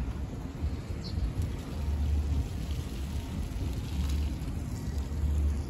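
Wind buffeting the microphone outdoors: uneven low rumbling gusts over a steady outdoor hiss.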